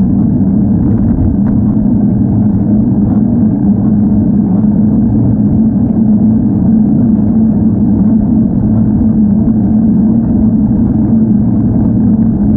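Loud, steady low rumble of wind and road noise picked up by a bicycle-mounted camera while riding.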